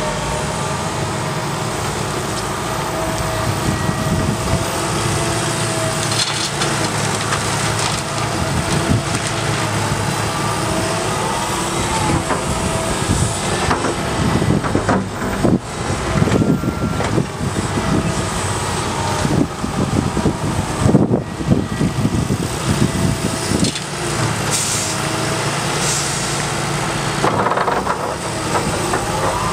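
Liebherr R 926 crawler excavator's diesel engine and hydraulics running under load, with a steady whine. In the middle stretch comes the scrape and clatter of its bucket digging into crushed recycling rubble.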